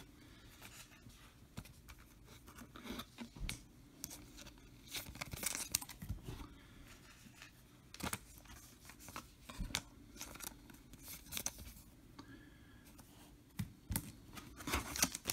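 Trading cards and foil card packs being handled: scattered light clicks and soft rustles, with louder crinkling starting near the end.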